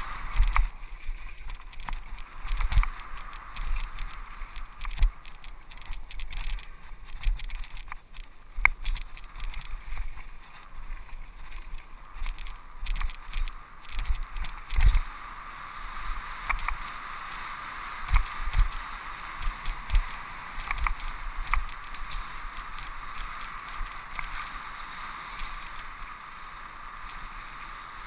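Mountain bike rolling fast over a dirt singletrack trail: steady rolling noise broken by irregular low thumps and short rattling clicks as it hits bumps and roots.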